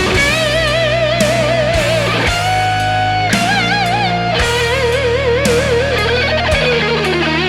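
Electric guitar played through a DemonFX overdrive, a DOD 250-style preamp pedal: a lead line of long sustained notes with wide vibrato, sliding slowly down in pitch near the end, over steady low bass notes.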